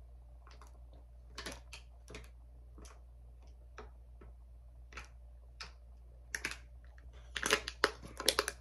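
Plastic bottle crackling and clicking as a man drinks from it: scattered sharp clicks at first, then a denser, louder run of crackles near the end as the bottle comes down and he handles the cap.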